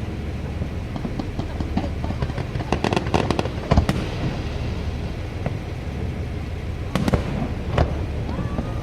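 Fireworks bursting: a quick cluster of sharp bangs about three seconds in, another just before four seconds, and two more around seven and eight seconds. Under them is a steady low rumble from the moving boat.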